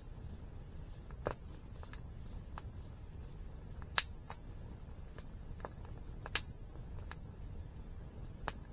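Wood campfire crackling: scattered sharp snaps and pops, the loudest about four seconds in and another a couple of seconds later, over a low steady rumble.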